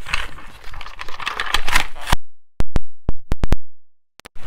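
Cardboard packaging being torn open and handled by hand, crinkling and crackling for about two seconds. Then it cuts off to a string of sharp electronic clicks in dead silence, a retro-TV static glitch transition effect.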